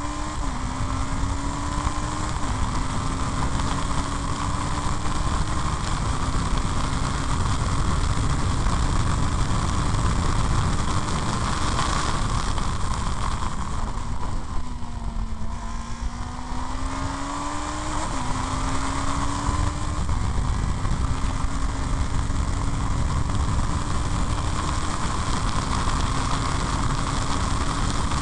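Formula BMW single-seater race car at speed, recorded onboard. The engine climbs through the gears with sharp upshifts, backs off and slows for a corner about halfway, then pulls hard again through three more upshifts, with heavy wind rush over the microphone.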